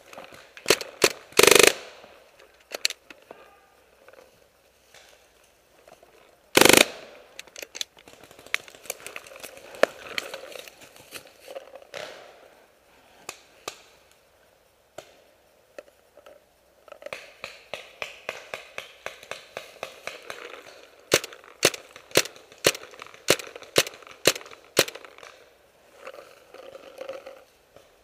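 Paintball markers firing: a few sharp shots in the first two seconds, a louder one about seven seconds in, and a string of about eight shots roughly half a second apart about three quarters of the way through.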